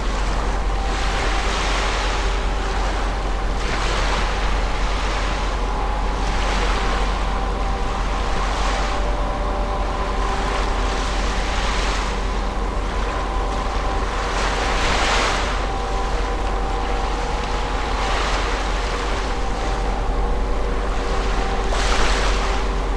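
Small waves wash against the shore in hissing surges every second or two. Under them runs a steady low hum with a few faint steady tones from the passing cruise ship MSC Poesia, along with wind rumble on the microphone.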